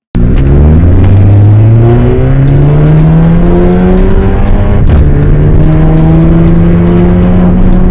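VW Golf MK6 TSI's turbocharged four-cylinder engine, running through a custom aftermarket exhaust, accelerating under load. It rises steadily in pitch, dips briefly about five seconds in as the DSG gearbox shifts up, then climbs again, heard from inside the cabin.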